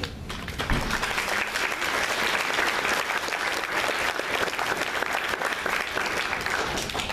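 Audience applauding after a children's choir song: dense, steady hand-clapping that stops near the end.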